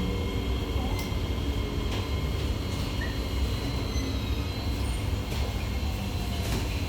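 Steady low rumble inside a C151A MRT train carriage, with a faint steady high whine and a few light clicks.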